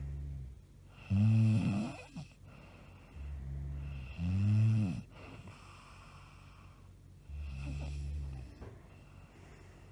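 A woman snoring loudly in a steady rhythm, about three breaths. Each breath is a low snore followed by a louder, higher snore that rises and falls in pitch.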